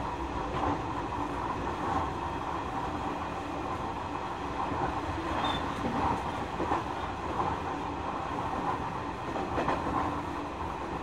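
Nishitetsu 9000 series electric train running, heard from inside the carriage: a steady rolling rumble of wheels on rail, with a few faint clacks over rail joints.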